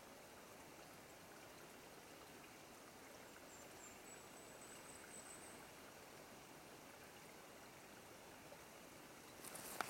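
Faint, steady trickle of water dripping and running into a shallow pool. A faint thin high whistle sounds for a couple of seconds midway, and louder crackling clicks start near the end.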